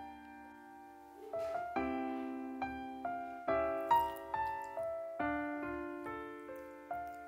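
Gentle background piano music, single notes and chords struck at an unhurried pace, each one fading away.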